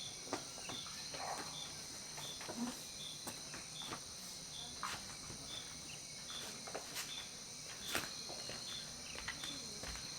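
Jungle insect chorus: a steady high-pitched trilling, with a short high chirp repeating about every two-thirds of a second and a few scattered faint clicks.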